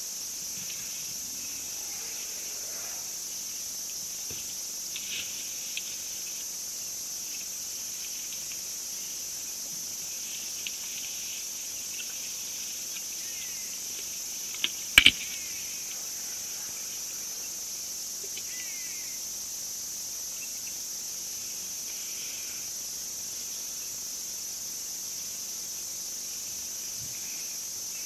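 Steady high-pitched chorus of insects chirring, with one sharp loud click about halfway through and a few faint short chirps.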